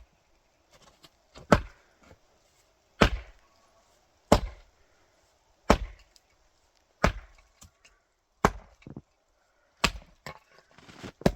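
Steady chopping of wood, about eight hard blows evenly spaced roughly a second and a half apart.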